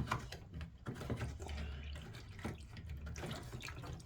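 Water trickling and dripping out of an LG washing machine's drain filter housing as the filter cap is unscrewed, with small irregular plastic clicks, over a low steady hum.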